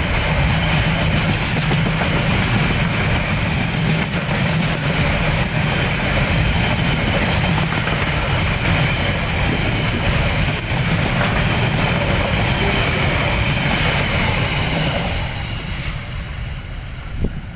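Freight train wagons rolling past close by, a loud steady rumble of wheels on rail with some clickety-clack. Near the end the noise drops away as the train passes.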